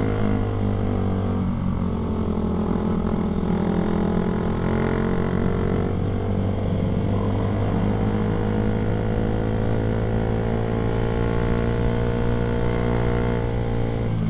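Motorcycle engine running steadily while riding, its pitch shifting slightly up and down with the throttle.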